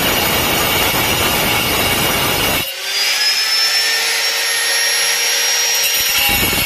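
Angle grinder with a diamond blade cutting a porcelain tile: a loud, harsh grinding noise. A little under halfway in, the grinding gives way for about three seconds to a whine that rises in pitch, then the cutting noise comes back near the end.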